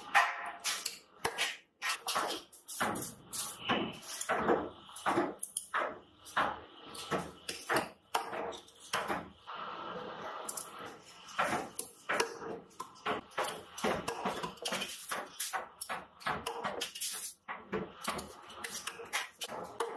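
Wooden mallet knocking thin ribbed tinplate strips around an iron former to bend them into paint-brush ferrules, with metallic clinks as the formed pieces are tossed onto a pile. The knocks come irregularly, one or two a second, with a short pause about halfway.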